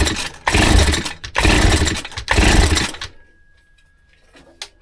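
Stihl FS160 brushcutter's recoil starter pulled repeatedly, about once a second, spinning the two-stroke engine over with its spark plug out for a spark test, so it does not fire. The pulls stop about three seconds in.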